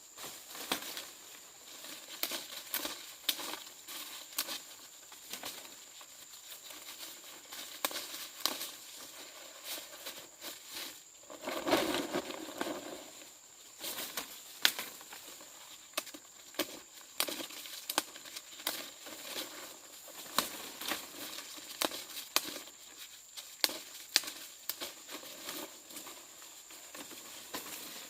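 Irregular crinkling and rustling with many small sharp clicks, over a faint steady high-pitched tone; a louder, fuller rustle swells briefly about halfway through.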